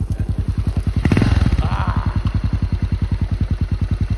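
Yamaha XT 600's single-cylinder four-stroke engine running as the bike rolls up and stops. It swells louder about a second in, then settles to an even idle of about ten beats a second.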